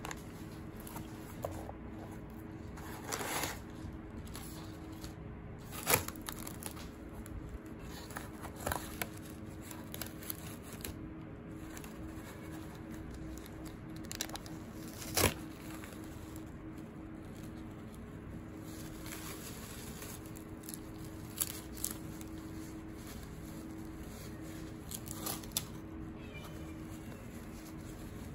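Gloved hands unpacking a cardboard parcel: rustling and crinkling of newspaper and tissue-paper wrapping, and cardboard flaps and packing handled, with a few sharp knocks, the loudest about 6 and 15 seconds in. A faint steady hum runs underneath.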